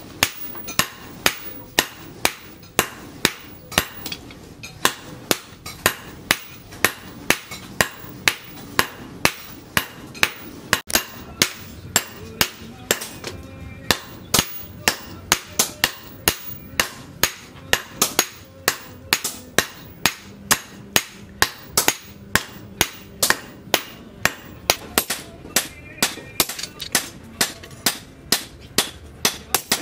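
Hand hammer striking red-hot leaf-spring steel on a steel post anvil, forging a cleaver blade: a steady run of sharp blows at about two to three a second.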